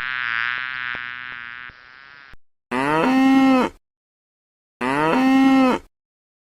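A farm animal calling: a longer call that fades away, then two separate calls about a second long, each rising at the start and then held steady.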